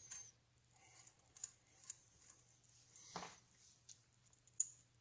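Faint, scattered clicks and light scraping of small metal engine parts being handled, with one sharper click near the end.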